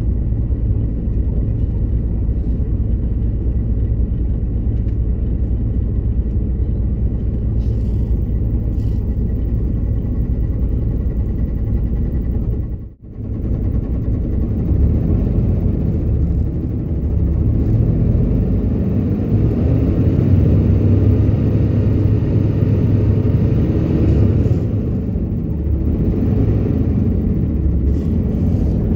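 Hino RM2 bus on the move: steady engine rumble and road noise. About thirteen seconds in it cuts out briefly, then comes back louder and more uneven.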